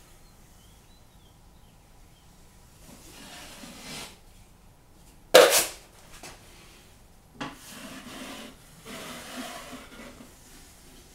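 Taping knife spreading and scraping drywall joint compound in several separate strokes, with one short, much louder scrape about five seconds in.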